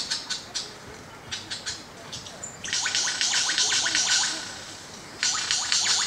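Male superb lyrebird singing during its tail-fanned courtship display: bursts of fast, scratchy, rattling notes with short falling chirps, separated by quieter gaps, the longest burst about halfway through.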